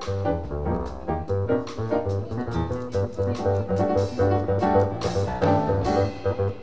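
A jazz piano trio playing live: piano, plucked double bass carrying changing low notes, and a drum kit with repeated cymbal strokes.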